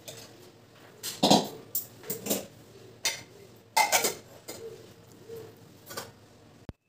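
Steel kitchen utensils clattering: a spoon scraping and knocking against a pan, and a steel lid clinking onto a steel pot, in a string of sharp knocks. The loudest come about a second in and about four seconds in. The sound cuts off abruptly just before the end.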